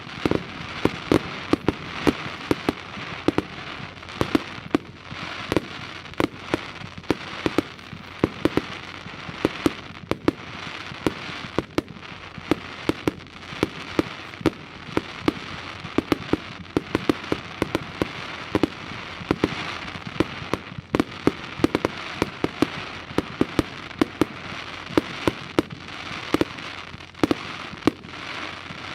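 Fireworks going off in a continuous barrage: many sharp bangs, a few a second, over a steady crackle.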